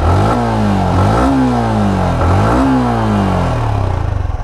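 Yamaha R15M's 155 cc single-cylinder engine revved with three quick throttle blips, each rising sharply and falling slowly back, then settling to idle near the end.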